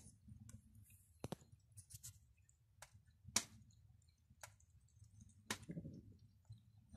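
Near silence broken by a few faint, sharp clicks spaced about a second apart.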